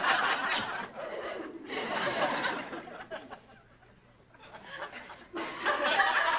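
Studio audience laughter that fades away by about halfway through, then rises again a little after five seconds in.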